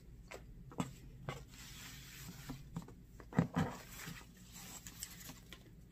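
Faint handling sounds of hands untying a fabric ribbon bow on a rigid cardboard gift box: soft rustles and a few light taps, the loudest about three and a half seconds in.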